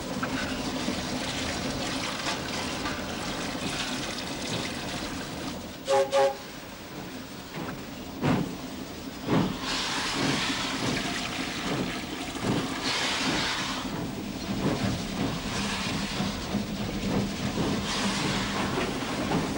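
Steam locomotive giving two short whistle blasts about six seconds in, then working with repeated bursts of exhaust steam and hissing over a steady hum.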